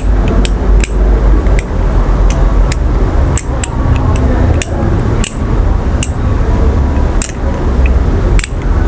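Balisong (butterfly knife) handles clicking and clacking irregularly, about one to two sharp clicks a second, as the knife is flipped through a half helix loop, over a steady low rumble.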